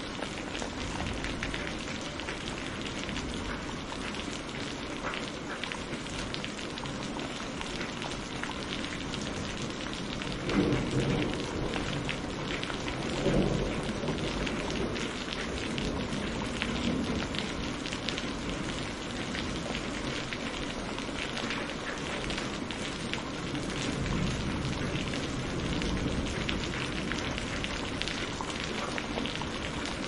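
Steady tropical rain falling on rainforest foliage. About ten seconds in, and again about three seconds later, a louder low rumble of thunder swells up and fades.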